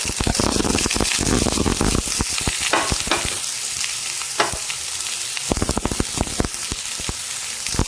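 Chopped onions frying in hot oil in a pan, sizzling hard as they go in, then stirred with a spatula that clicks and scrapes against the pan.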